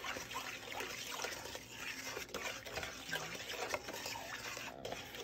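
A spoon stirring a thick sugar, cream and milk mixture in a stainless steel pot, with soft, irregular sloshing and the utensil scraping against the pot.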